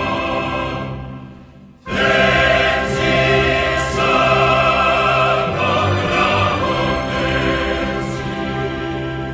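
National anthem sung by a choir with orchestra. A phrase dies away about a second in, and the full choir and orchestra come back in strongly just before two seconds, holding on until near the end.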